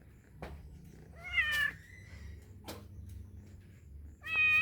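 Domestic cat meowing: a short meow about a second in, and a longer, steadier meow near the end.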